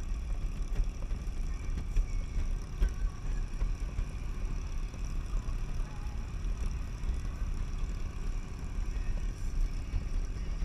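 Wind buffeting a helmet-mounted camera at road speed on a touring motorcycle, a steady rumble that rises and falls irregularly, with the bike's engine and tyre noise underneath.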